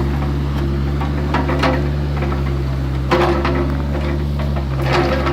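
Excavator engine running steadily, with short clanks and knocks about a second and a half in, around three seconds in, and near the end.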